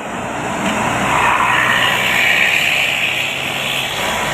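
A bus passing close at speed: engine and tyre-and-wind rush growing louder over the first second, then holding loud and steady. No horn sounds.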